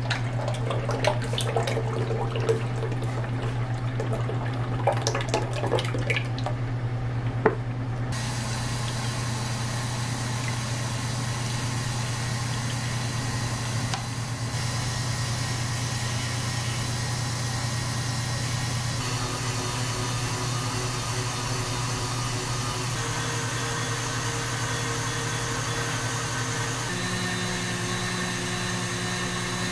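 KitchenAid Artisan stand mixer running with its wire whisk in the steel bowl: liquid whipping cream is poured in over the first several seconds, with splashing and light clinks over the motor hum. Then a steady whir as the whisk whips the cream, the motor's tone stepping up a few times in the second half as the speed is raised.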